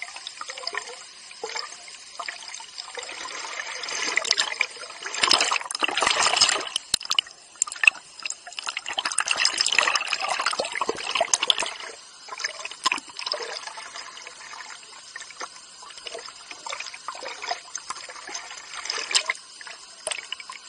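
Water splashing and lapping against a camera held at the surface while a person swims, with irregular splashes and drips. It is louder for a few seconds about a quarter of the way in and again around the middle.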